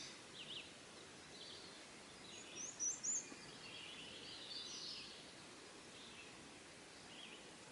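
Faint songbirds calling intermittently in the forest: short high chirps and whistled notes, with a quick run of high chirps about three seconds in, over a quiet outdoor background.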